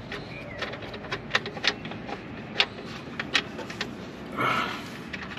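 Ratchet wrench clicking irregularly as the 8 mm throttle body bolts are worked loose by hand, with a brief denser rattle about four and a half seconds in.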